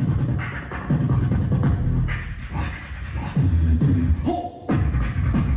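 Beatboxing performance: vocal bass and mouth-percussion beats in a steady rhythm, briefly cutting out about four and a half seconds in before the beat returns.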